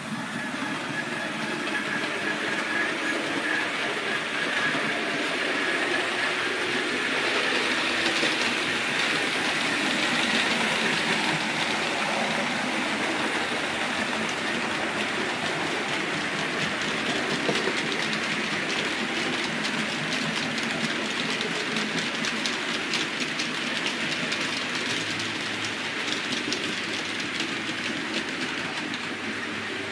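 4mm-scale (OO gauge) model trains running on the layout's track: a steady rattle of small motors and wheels with rapid clicking over the rail joints. A faint high whine sounds in the first few seconds, and the sound is loudest around the middle.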